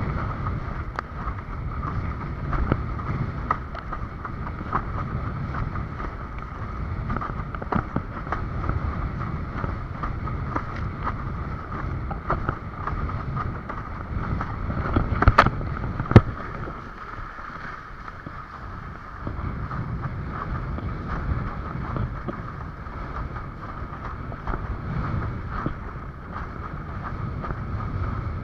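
Wind buffeting the microphone over water rushing against a windsurf board under sail. About halfway through come two sharp knocks a second apart.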